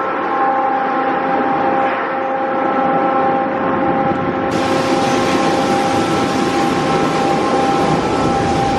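Autec Evolution soft-touch car wash machine running: spinning foam brushes sweep a car under water spray, with a steady whine of several tones from the machinery. About halfway through the spray hiss turns suddenly brighter.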